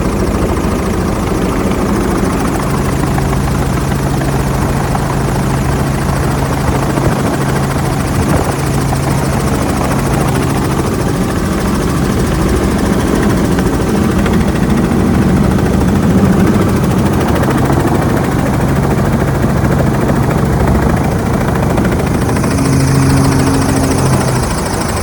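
Helicopter running steadily, a loud constant drone of engine and rotor noise with a steady low hum. A higher hiss joins near the end.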